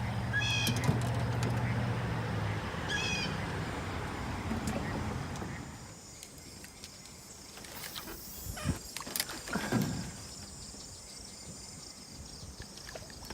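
A bird calls twice in quick chirping series over a low steady hum and a wash of outdoor noise. The second half is quieter, with a few scattered clicks and knocks.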